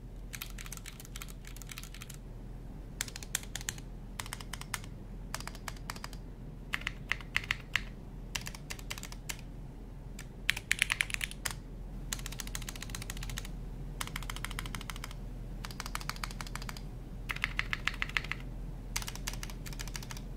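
TKD Cycle 8 tenkeyless mechanical keyboard being typed on for a sound test: bursts of rapid keystrokes, each about a second long, separated by short pauses.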